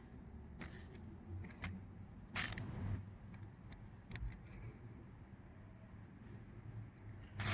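Faint clicks and taps of handling around the battery terminal, with one short hiss of WD-40 aerosol spray about two and a half seconds in.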